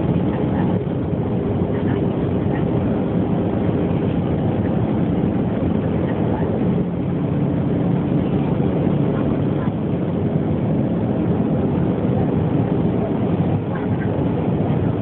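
Steady cabin noise of an Airbus airliner on approach, heard from a window seat over the wing: a low, even rush of engine and airflow noise.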